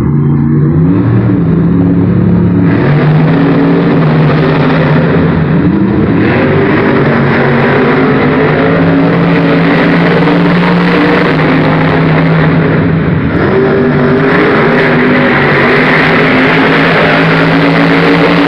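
Monster trucks' supercharged V8 engines revving hard and racing, loud throughout, with a jump in loudness about three seconds in and the engine pitch rising and falling.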